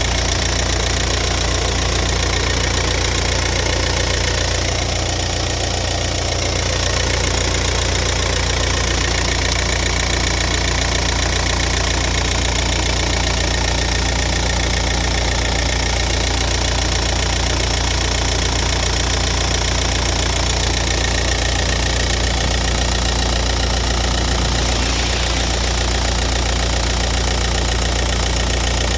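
Volkswagen-group 1.9 TDI diesel (AVF engine code) idling steadily with a regular knocking tick, the strange noise the owner is asking about.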